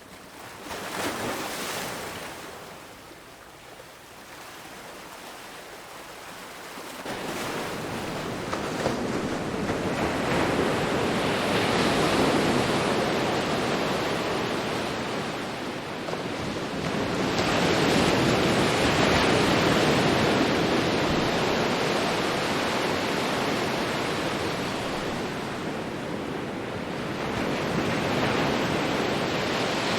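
Ocean surf: waves breaking and washing ashore in slow swells, a small one about a second in, then louder ones building from about seven seconds in and cresting several times.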